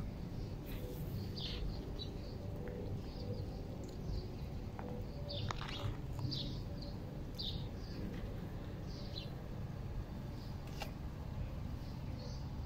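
Small birds chirping: short high chirps every second or two, over a steady low background rumble.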